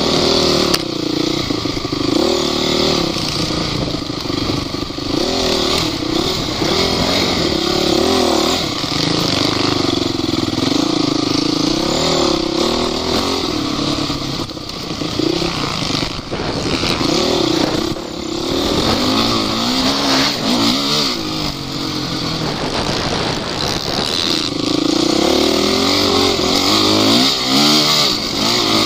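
Off-road vehicle engine revving up and down again and again, the pitch rising and falling every couple of seconds, with knocks and rattles mixed in.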